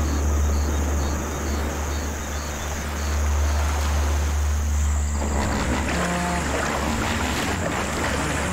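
Hippos splashing and churning water, a rushing, splashing noise over a steady low rumble; the splashing grows busier in the second half. Faint regular cricket chirps sound in the first few seconds.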